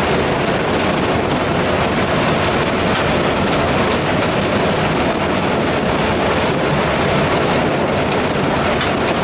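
Steady din inside the cab of a WDP4B (EMD GT46PAC) diesel-electric locomotive running at speed: the 16-cylinder EMD 710 diesel engine, wheels on the rails and wind through the open front window blended into one even noise.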